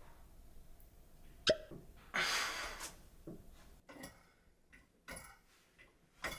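A person's sharp, hiccup-like squawk, one short burst about a second and a half in, followed by a short rush of breathy noise and a few faint smaller sounds: the involuntary bird squawk of a man turning into a bird.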